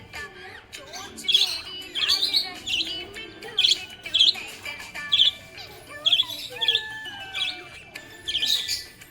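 Budgerigar chirping and warbling: quick, high, repeated chirps mixed with a wavering, sliding chatter.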